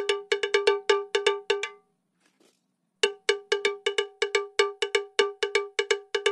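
Cowbell-like pitched percussion struck about six times a second in a quick, uneven rhythm, as a soundtrack. It drops out about two seconds in and picks up again a second later.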